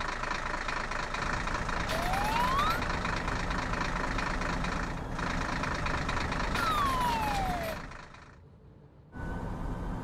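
Cartoon vehicle engine sound effects of a tow truck and a small jet plane moving. A steady engine noise carries a whine that rises about two seconds in and falls away about seven seconds in. It dies down near eight seconds, and a second steady engine hum starts near the end.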